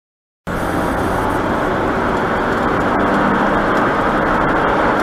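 About half a second of dead silence, then steady road and engine noise of a moving car, heard from inside the cabin.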